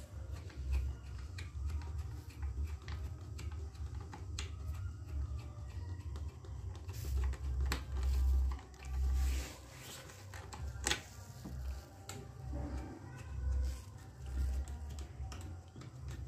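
Scattered light clicks and taps as a car tail-light's 10 mm mounting nuts are turned off by hand, with one sharper click about eleven seconds in. A low rumble swells and fades underneath.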